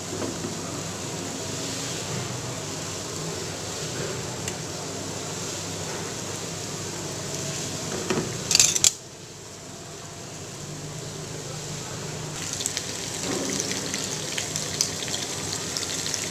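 Breadcrumb-coated corn dogs sizzling in hot oil in a frying pan: a steady crackling hiss. About eight and a half seconds in comes a brief louder burst, then the sizzle drops and slowly builds back with scattered pops.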